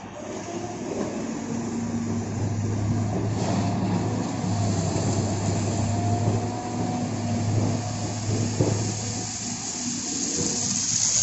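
Caterpillar 320 GC hydraulic excavator running steadily as it digs into a gravel pile: a low engine drone with a wavering whine over it.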